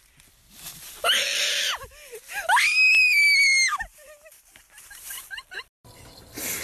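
A person screaming twice: a short, rough shriek about a second in, then a longer, very high-pitched scream that rises, holds for about a second and drops away.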